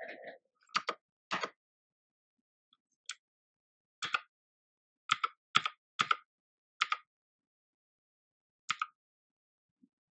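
About ten separate plastic clicks and knocks at irregular intervals, each sharp and brief, from a mechanical keyboard being handled and reassembled.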